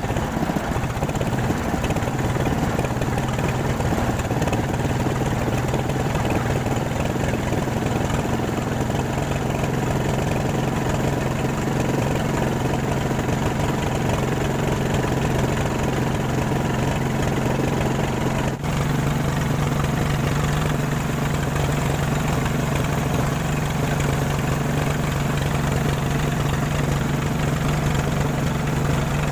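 The engine of a pompong, a small wooden river motorboat, running steadily under way with a constant low drone. About two-thirds of the way through it drops out for a moment, then runs on at a slightly higher pitch.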